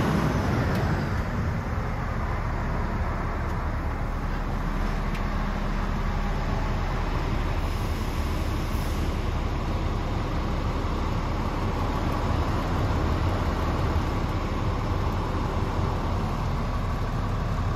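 Scania P450's 13-litre six-cylinder Euro 6 diesel engine idling steadily, heard from inside the cab.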